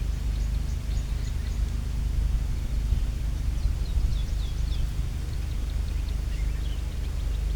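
Small birds chirping in short, quick notes, busiest about four to five seconds in, over a steady low rumble.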